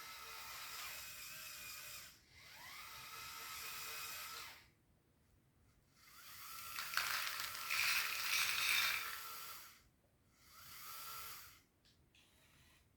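Small Lego Powered Up electric motors and their plastic gear trains whining in separate runs of one to four seconds with short pauses between, the pitch rising as a run starts. The run about seven to nine seconds in is the loudest and roughest.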